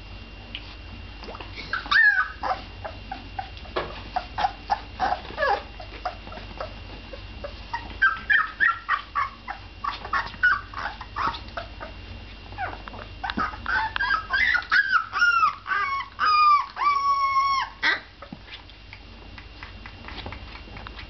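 Young Bernese Mountain Dog puppies whimpering and squeaking in bouts of short, high-pitched cries. The last and loudest bout includes a few longer, drawn-out whines.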